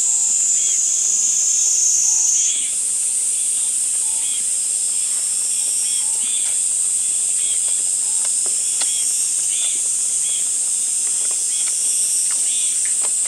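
Steady chorus of crickets and other insects: a high, continuous trill. A faint short call repeats about every two seconds, and a few soft clicks fall in between.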